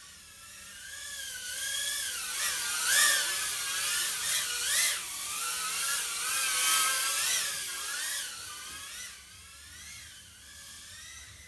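HGLRC Petrel 75 tiny-whoop FPV drone in flight: its four 0802 17,000 KV brushless motors and small props whine, the pitch rising and falling constantly with the throttle. It is loudest for several seconds in the middle, then drops back.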